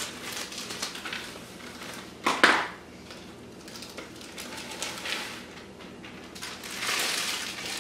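Dry chocolate cake mix being dumped from its packet into a mixing bowl: rustling and scattered clicks and clinks, with one louder clatter about two and a half seconds in and more rustling near the end.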